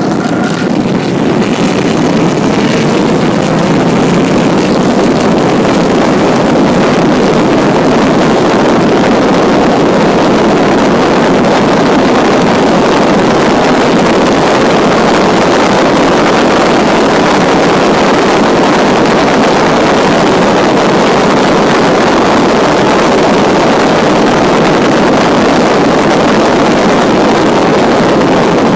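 A 1952 Jaguar XK120's straight-six engine pulling hard under acceleration, heard from the open cockpit with loud wind rush on the microphone; the engine note rises over the first few seconds as the car gathers speed, then holds steady at high speed.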